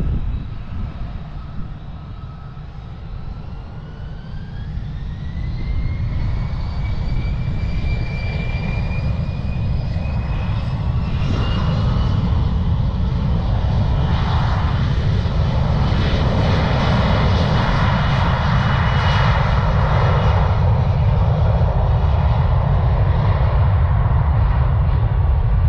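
Bombardier CRJ900 regional jet's two rear-mounted GE CF34 turbofans spooling up for takeoff, heard over a steady low rumble. A whine rises in pitch over several seconds and levels off, then the jet noise grows louder and holds as the aircraft accelerates down the runway.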